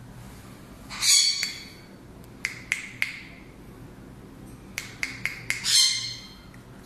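African grey parrot giving two harsh squawks, about a second in and near the end, with a run of short, sharp clicks between them.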